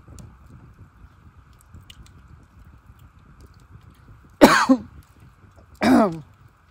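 A man chews quietly, then coughs hard twice, about a second and a half apart, each cough falling in pitch. He puts the coughing down to a bite with too much seasoning.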